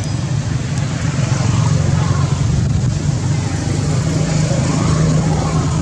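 A steady low motor drone with an even hiss over it, holding the same level throughout.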